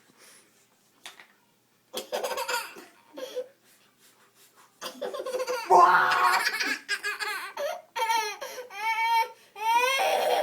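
A baby laughing in bursts after a quiet first couple of seconds, ending in a run of quick, high-pitched giggles.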